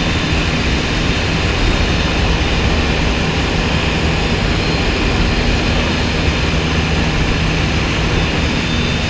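Aircraft engine running steadily: a constant noise with a low hum and no change in level.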